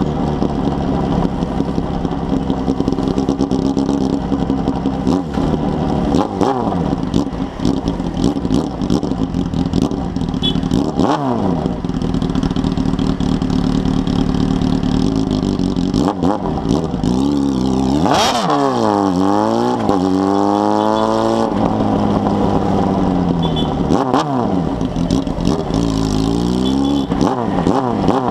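Honda Hornet 600's inline-four engine through a 4-into-1 exhaust, riding in traffic with the revs rising and falling several times. Near two thirds of the way in it revs up hard, then the pitch falls away over a couple of seconds.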